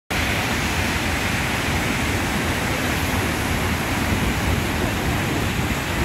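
Waterfall in full flow: a steady, even rush of falling water.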